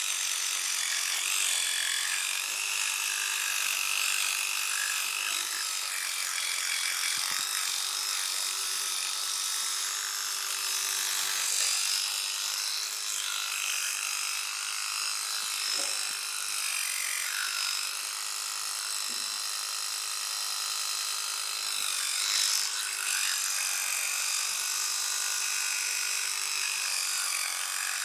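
Electric toothbrush running continuously: a steady hum under a shifting scrubbing hiss.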